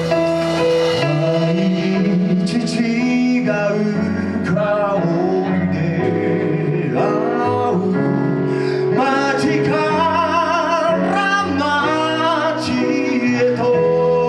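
Live band playing a slow ballad, with a lead vocal singing with vibrato over held accompaniment chords; the voice enters about a second in.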